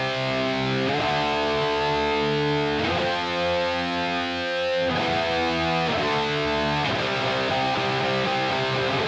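Soloed high-gain distorted electric guitar through the ML Sound Lab ML800 plugin, a model of a Marshall JCM800, on its metalcore preset with no other processing. It plays a riff of held chords that change every second or two.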